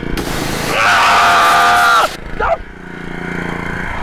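Pressure washer jet hissing for about two seconds, then cutting off abruptly, with a man's long held yell over the spray. A short cry follows, then the machine's steady low running hum returns.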